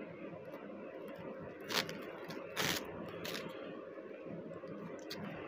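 Packaging rustling as a foam mesh fruit sleeve and its wrapping are handled and pulled open, with a few sharper crackles in the middle.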